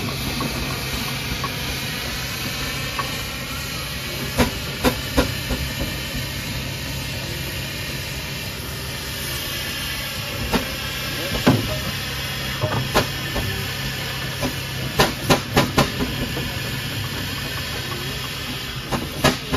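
1899 steam traction engine hissing steam steadily over a low steady hum, with scattered sharp knocks and clanks, a quick run of them about fifteen seconds in and a few more near the end.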